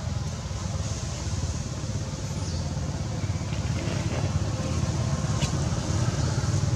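Steady low rumble of background noise, with a faint high chirp about two seconds in and a short sharp click about five and a half seconds in.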